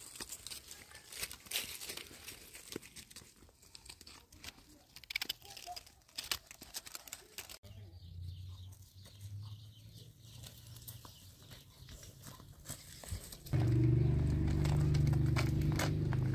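Footsteps crunching and crackling over dry leaves and twigs, with scattered snaps. Near the end a loud, steady low sound starts suddenly and holds.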